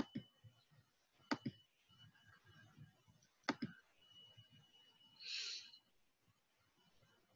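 Computer mouse clicking three times, each click a quick double snap, then a short hiss about five seconds in, over a faint thin steady whine.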